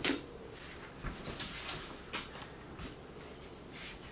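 Quiet room with a few faint, scattered rustles and light clicks; no drill or motor running.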